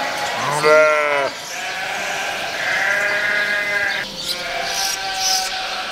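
Sheep bleating: one loud, wavering bleat about a second in, followed by several longer, higher bleats overlapping.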